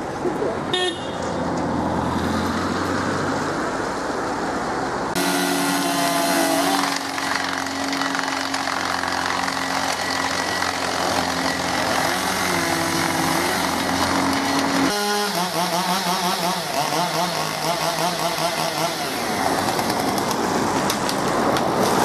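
Two-stroke chainsaws running during tree felling, the engine note holding steady for long stretches and wavering as the saws are revved. The sound changes abruptly twice, as one clip cuts to another.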